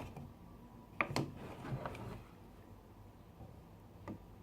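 A few light knocks and clicks from handling a plastic gallon jug of white glue while pouring it: a cluster about a second in and a single click near the end, over quiet room tone.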